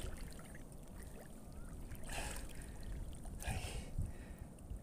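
Water splashing and sloshing softly, with a few short splashes about two and three and a half seconds in.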